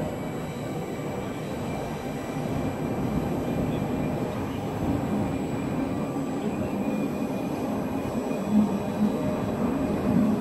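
Steady low rumble of trains under a large station's train shed, growing slowly louder, with a brief louder bump near the end.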